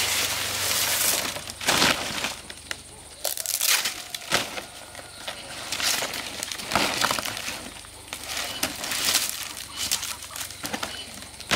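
Fan palm leaves rustling, crackling and swishing in repeated irregular bursts as they are dragged and laid over a bamboo roof frame for thatch.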